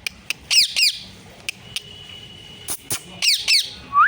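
Pet parrot screeching: two pairs of sharp calls that fall steeply in pitch, one under a second in and another near the end, with a few short clicks in between.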